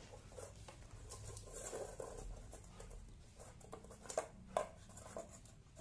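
Husky eating from a steel food bowl: faint chewing and licking, with small clicks of teeth and tongue against the bowl and two sharper clicks about four seconds in.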